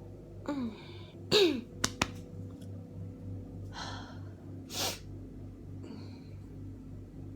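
A person with a head cold in a sneezing fit. There is a catching breath about half a second in, then a loud sneeze with a falling cry just after a second in, followed by two sharp clicks. A breath in comes near four seconds and a second, shorter sneeze near five seconds.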